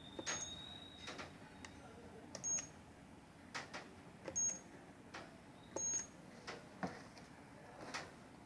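Light clicks and knocks from a wireless security alarm panel being handled and keyed in. Four short high beeps come about two seconds apart, and a thin steady tone sounds for the first second or so.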